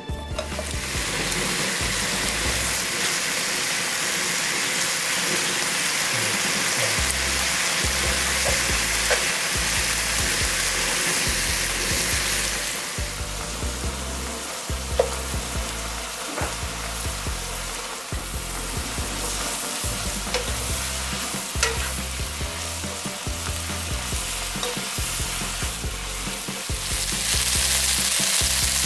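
Thinly shaved pork belly, and later green onion, sizzling in rendered fat in a nonstick frying pan. Scattered clicks of the utensils against the pan come through as the meat is spread and stirred. The sizzle is loudest at first, eases off partway through, and grows louder again near the end.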